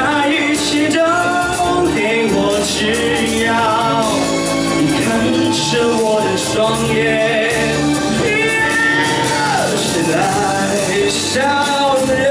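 A man singing a Mandarin pop song into a microphone over a loud recorded backing track, with a long downward vocal slide about ten seconds in.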